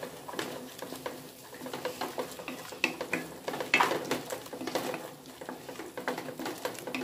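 Wooden spatula stirring and scraping a thick onion-tomato masala around a non-stick kadai, with irregular scrapes and light knocks against the pan as freshly added spice powders are worked in over a faint sizzle.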